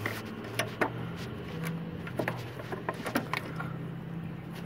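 Irregular light clicks and scrapes of a Fiat 500 1.4-litre engine's oil filter housing cap being turned by hand to start its threads, over a low steady hum.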